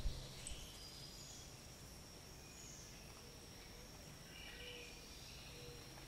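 Faint outdoor background: a steady high-pitched insect drone, with a few soft bird chirps about two-thirds of the way through.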